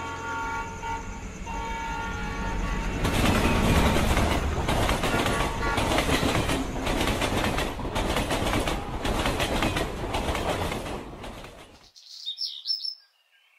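Train sound effect: a train running on the rails, wheels clattering in a regular rhythm over the rail joints, which swells a few seconds in and then cuts off abruptly near the end. Brief high chirps follow.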